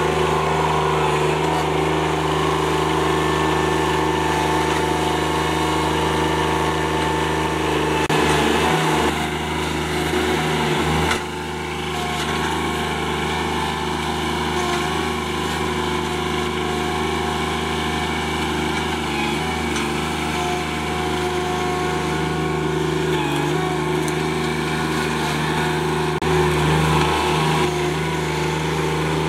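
John Deere 2320 compact tractor's three-cylinder diesel engine running at steady throttle while its loader works a grapple, with an abrupt drop in level about eleven seconds in.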